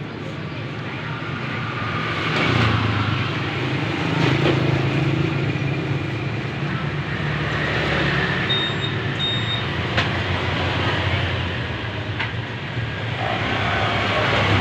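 Motor vehicle engines running, a steady mechanical hum that grows louder about two seconds in and rises and falls after. A short double beep sounds about eight and a half seconds in, and there are a few sharp clicks.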